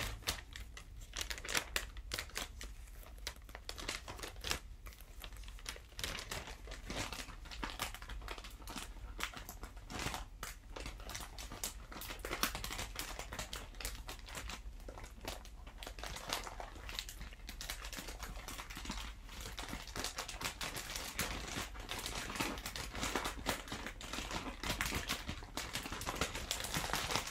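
Packaging crinkling and rustling as merchandise pouches are handled and unwrapped, with irregular crackles throughout.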